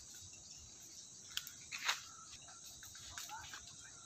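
Wood fire burning faintly around the base of a large tree trunk over a steady high hiss, with a few sharp crackles and pops, two of them clear about one and a half and two seconds in.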